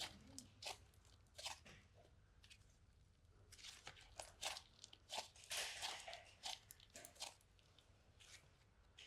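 Faint crunching and crackling from a slime toy being handled: a scatter of small sharp clicks, thickest in the middle.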